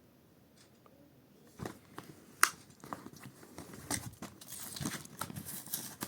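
Hands struggling to open a Matchbox toy car's plastic-and-card packaging: crinkling plastic and tearing card with sharp clicks, starting about a second and a half in.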